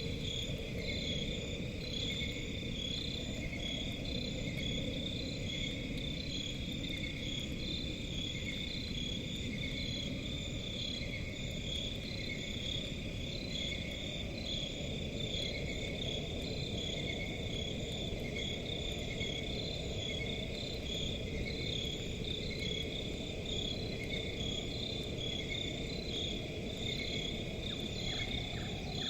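Crickets chirping in a steady, evenly repeating rhythm over a low, constant rumbling background.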